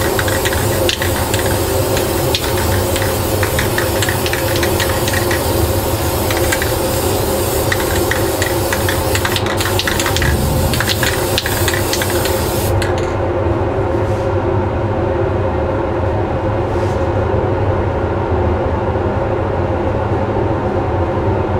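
Spray booth extraction fan running steadily, with an aerosol spray paint can hissing over it in spurts until about 13 seconds in, when the spraying stops and only the fan is left.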